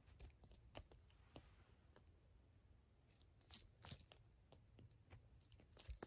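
Near silence, broken by a few faint, short clicks and rustles, the clearest two close together a little past the middle.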